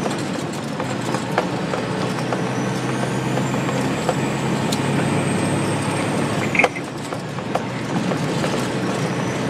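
Tractor-trailer's diesel engine and road noise heard from inside the cab while driving at town speed: a steady drone with a faint high whine. About two-thirds of the way through there is a short click, and the drone drops a little after it.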